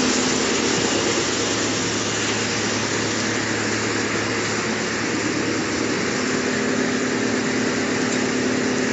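Wood chipper running steadily: a loud, even machine noise with a steady low hum, no separate knocks or crunches.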